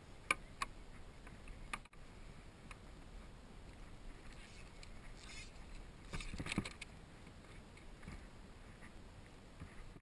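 A few sharp knocks and clicks of gear being handled on a plastic sit-on-top kayak, over faint water lapping, with a short cluster of knocks and rustling about six seconds in.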